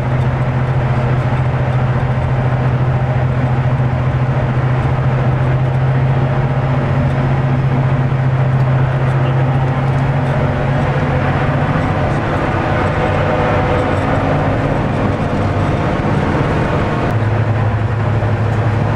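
Napier Deltic two-stroke engines of a Class 55 Deltic locomotive running steadily under way, heard from inside the cab, with a loud, even drone and rail running noise. The engine note drops to a lower pitch a couple of seconds before the end.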